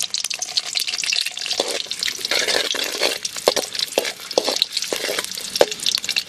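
Garlic cloves sizzling and crackling in hot oil in an aluminium pan. From about a second and a half in, a metal spoon stirs them with several sharp knocks against the pan.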